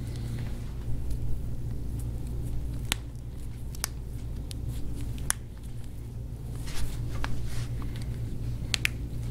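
Hands kneading deep into a person's forearm: scattered sharp clicks and soft skin rubbing under the thumbs, over a steady low hum.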